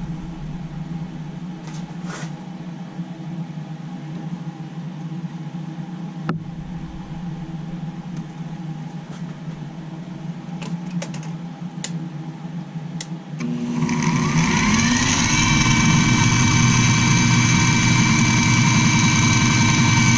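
A low steady hum with a few light clicks, then about two-thirds of the way in an electric drill motor switches on, its whine rising over a second or so and settling into a steady, louder run at full speed.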